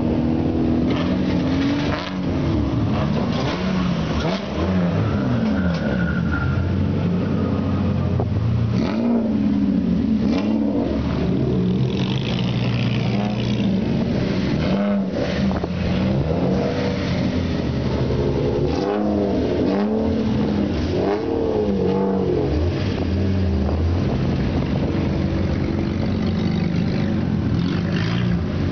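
Several Toyota GX71-era straight-six sedans with loud aftermarket mufflers driving past one after another, engines revving in repeated blips that rise and fall in pitch, several overlapping at once.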